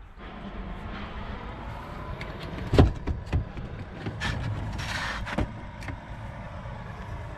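Volvo V70 with its engine running steadily. A sharp knock comes just under three seconds in, the loudest sound here, followed by several lighter knocks and clunks.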